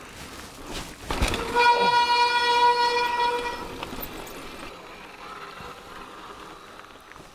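Mountain bike disc brake squealing under braking on a wet, slippery trail: a knock about a second in, then a steady high-pitched squeal for about two seconds that fades into quieter riding noise.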